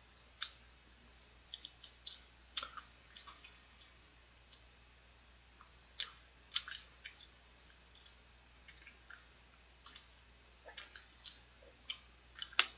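Faint, irregular crackly clicks of someone biting and chewing the fried batter coating off a piece of fried chicken neck.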